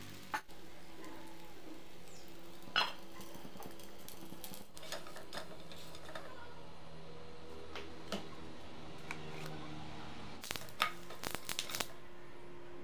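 A spatula clicking and scraping against a nonstick frying pan as an appam is worked loose and lifted out: one knock about three seconds in and a quick run of clicks near the end, over a faint steady hum.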